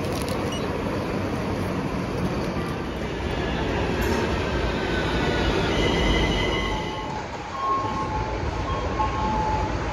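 Metro train running on its rails: a steady rumble, joined about halfway through by thin, high squealing tones from the wheels.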